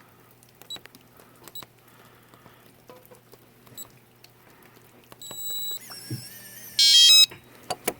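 Keypad of an electronic RV door lock: four soft button presses with faint beeps as a code is entered, then a longer beep about five seconds in. The lock's motor then drives the latch, with a short loud buzz about seven seconds in and a click near the end, a sign that the code was accepted and the lock opened.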